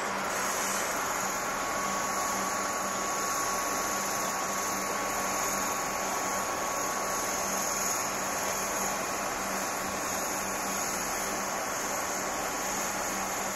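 Steady hiss and hum of a stationary Comeng electric suburban train, its air-conditioning and auxiliary equipment running, with a faint steady whine and a low hum.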